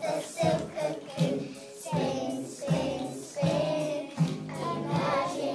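Children singing a song together over musical accompaniment with a steady beat.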